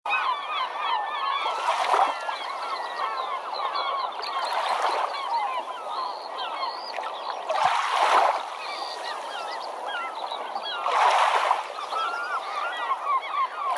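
A flock of birds calling all together, many short rising and falling calls overlapping. Four louder rushes of noise swell up over it, about three seconds apart.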